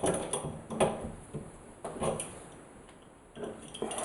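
A shower head being unscrewed from the shower arm by hand: a string of short clicks and knocks as the fitting turns and is handled, about six in four seconds.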